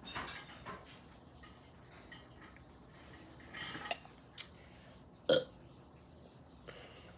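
A person burping. The loudest burp is short and comes about five seconds in, after softer sounds and a sharp click.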